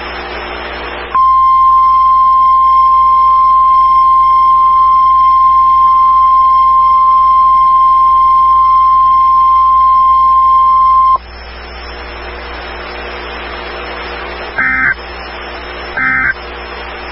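NOAA Weather Radio's 1050 Hz warning alarm tone: one steady, loud tone held for about ten seconds, starting about a second in and cutting off sharply. Stream hiss follows, then three short bursts of SAME digital data tones about a second and a half apart near the end.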